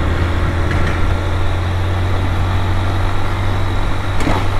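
Honda Fan 160 motorcycle's single-cylinder engine running steadily, an even low hum that does not change in pitch.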